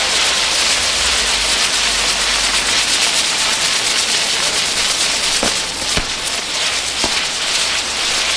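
Ground fireworks burning with a loud, steady, dense hiss and crackle of spraying sparks. A few sharp cracks come about five and a half, six and seven seconds in.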